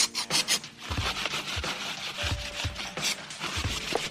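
Cloth rag rubbing and wiping over a motorcycle's engine, frame tubes and wiring, with short sharp hisses of aerosol cleaner spray in the first half-second and again about three seconds in.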